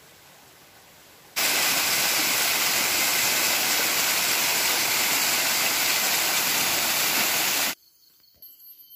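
Loud, steady rush of a small waterfall cascading over rock steps. It starts abruptly about a second and a half in and cuts off just as abruptly near the end. Before it there is only a faint hiss.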